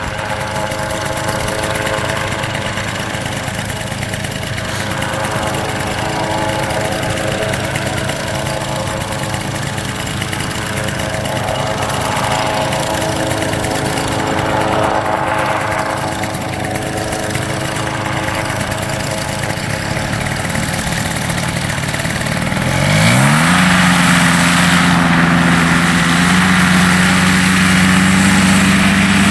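Paramotor's two-stroke backpack engine and propeller idling steadily, then revved up late on: the pitch rises quickly and it runs louder and steady at high revs as the throttle opens to launch, pulling the wing up overhead.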